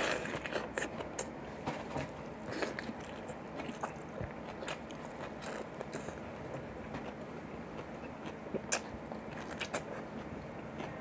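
A person biting and chewing boiled cabbage leaf up close to the microphone: irregular small wet clicks and smacks of the mouth, with one sharper click about nine seconds in.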